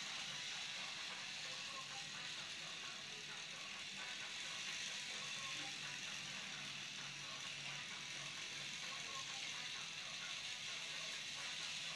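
Tomy Plarail battery-powered toy steam locomotive running around plastic track: its small electric motor whirs steadily and the wheels rattle over the track joints, with the locomotive running on weak batteries.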